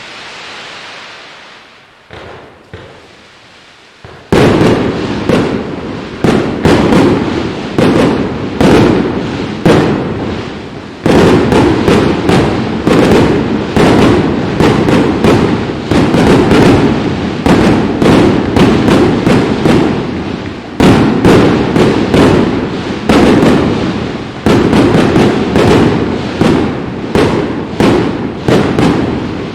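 A fireworks display: after a few seconds of quieter hiss, a rapid barrage of shell bursts starts about four seconds in, with bangs and crackles following one another several times a second. The barrage grows denser again around eleven and twenty-one seconds in.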